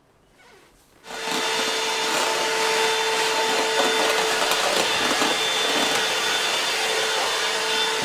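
A vacuum cleaner switched on about a second in, then running steadily with a constant hum.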